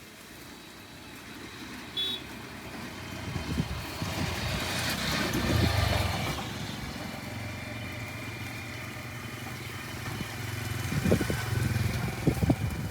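An engine running with a steady low hum, growing louder toward the middle and then holding, with several sharp knocks near the end.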